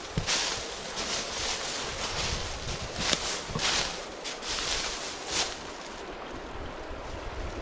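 Footsteps swishing and crunching through dry grass and brush, several distinct steps over a steady rush of flowing river water, with wind rumbling on the microphone.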